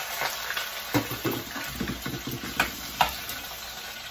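Mustard oil and ghee sizzling in a frying pan, with a spoon stirring and knocking against the pan several times.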